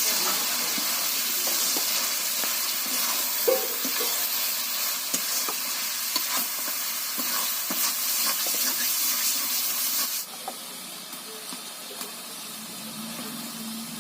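Chicken frying in a pan, a steady sizzle with the clicks and scrapes of a ladle stirring it; about ten seconds in the sizzle drops away sharply and it goes quieter.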